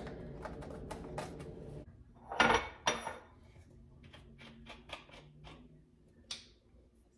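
Kitchen things handled on a countertop: plastic measuring spoons and a small spice jar clicking and tapping, with a louder knock about two and a half seconds in as a glass measuring cup is set down. Light clicks follow as the plastic cap is twisted off a bottle of white vinegar, over a faint steady hum.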